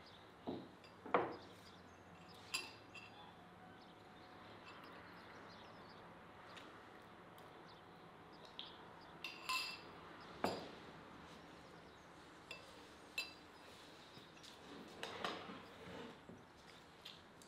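Cutlery and dishes clinking now and then: about a dozen irregular taps, some with a short metallic ring, the loudest about a second in and about ten seconds in.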